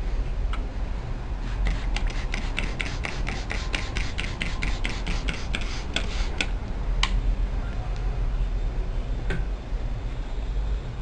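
Hot clothes iron on a water-soaked cloth, crackling as the water flashes to steam: a quick even run of clicks, about five a second for some five seconds, then a couple of single clicks, over a low steady hum.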